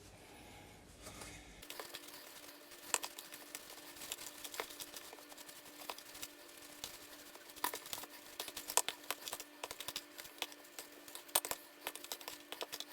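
Butter and sugar being creamed by hand in a mixing bowl: a utensil scraping and clicking irregularly against the bowl.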